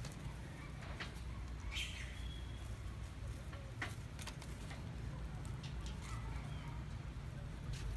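Outdoor ambience with a steady low rumble and a few short, high chirps, the clearest about two seconds in, among scattered sharp clicks.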